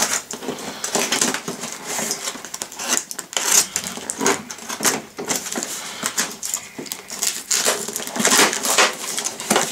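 Taped cardboard shipping box being opened by hand, its packing tape slit with a box cutter and the flaps pulled apart: an irregular run of scraping, rustling and crackling noises.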